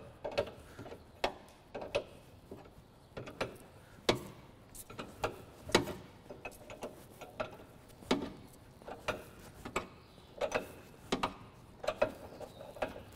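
A ratchet wrench clicks in short, uneven strokes, about one or two sharp clicks a second, as it turns the take-up on a drag chain conveyor's tail to tighten a loose chain.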